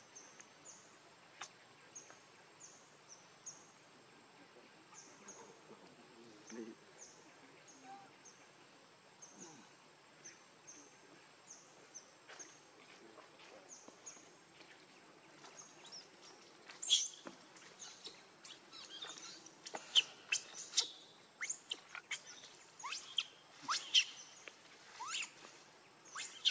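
A steady high insect whine with a bird repeating a short falling chirp about every two-thirds of a second. From about two-thirds of the way in, louder, sharp high-pitched squeaks and chirps come thick and fast.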